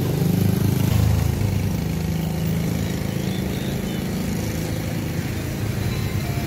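A motorbike engine running steadily close by, a little louder in the first second and a half.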